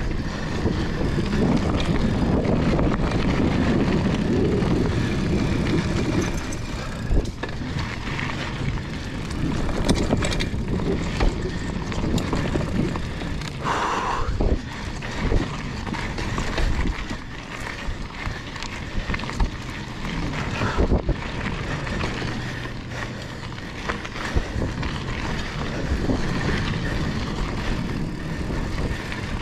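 Mountain bike ridden over sandy singletrack, heard from an action camera on the bike or rider: the tyres run through sand and dirt while the bike rattles and knocks over bumps, with wind on the microphone. About halfway through there is a brief higher tone.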